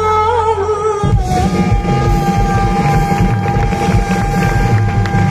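Live band music: a singer's line with wide vibrato over a steady low drone. About a second in, drums and the full band come in under a long held high note.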